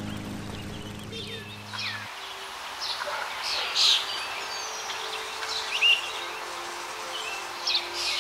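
Nuthatch calling: short sharp chirps, the loudest about four and six seconds in, over soft held notes of background music.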